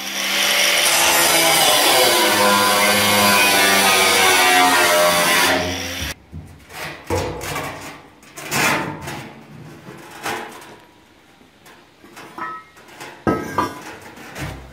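Angle grinder cutting into a bathtub's metal shell, a loud steady whine with grinding hiss, for about six seconds before it stops abruptly. After that come scattered knocks and scrapes as the metal tub is handled and tilted on concrete.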